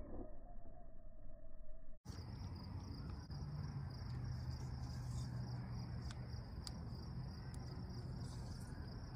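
Crickets chirping in a steady night chorus, with a low steady hum underneath. The first two seconds are muffled, then the sound opens up after a brief dropout.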